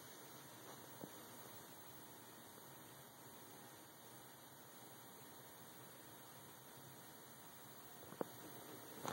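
Near silence: room tone with a faint steady hum and hiss, broken by a faint click about a second in and another near the end.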